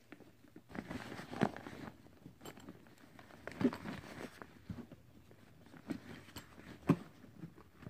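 Hands handling a fabric backpack's pouch and the gear in it: irregular rustling with scattered small knocks and clicks, the sharpest click near the end.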